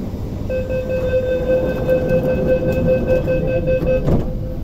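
SP1900 (IKK-train) door-closing warning: a pulsing electronic tone sounds for about three and a half seconds, then the doors shut with a thud about four seconds in. A steady low train hum runs underneath.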